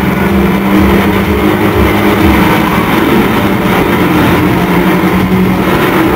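Live industrial rock band playing loudly through a club PA, a heavy, distorted passage built on a steady low drone.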